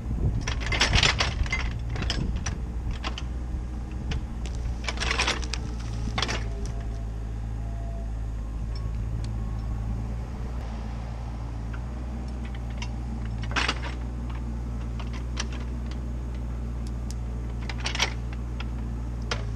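CAT 304CR mini excavator's diesel engine running steadily, with clattering and knocking as its bucket and thumb grab and drag branches. There is a burst of clatter about a second in and again around five seconds, then single sharp knocks near fourteen and eighteen seconds.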